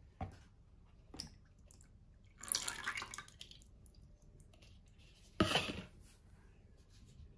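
Milky liquid splashing in a plastic tub, two bursts about a second long each, after a couple of light knocks near the start.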